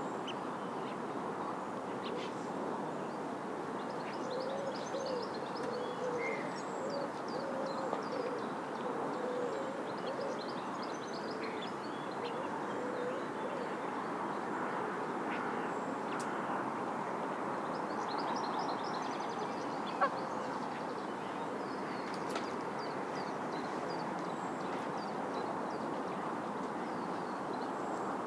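Birds calling over a steady background rush: a run of low cooing calls in the first half, high chirps of small birds on and off, and a single sharp click about two-thirds of the way through.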